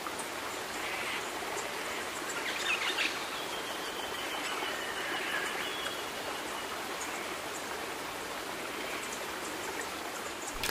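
Steady rush of flowing river water, with faint bird calls now and then, among them a thin high whistle a few seconds in.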